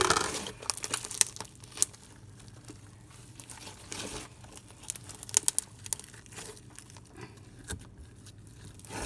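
Elmer's glue slime being stretched and squished close up, crackling and popping irregularly as small air pockets burst. The crackles come in clusters, busiest at the start and again about four to five seconds in.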